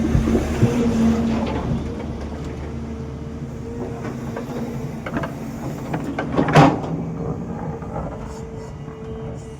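Excavator's diesel engine running steadily with a constant hum, with scattered knocks and one sharp, loud noise about two-thirds of the way through.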